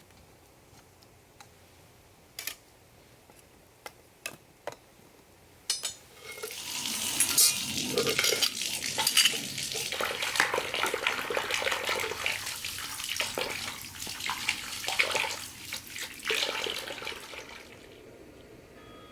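A few separate clinks of metal cookware, then about six seconds in a long stretch of clattering and scraping of pots and utensils, with water sounds, that dies down near the end.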